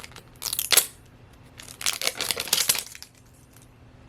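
Plastic wrapping on a Mini Brands capsule crinkling and tearing as it is pulled open by hand, in two bursts: a short one about half a second in and a longer one from about two to three seconds.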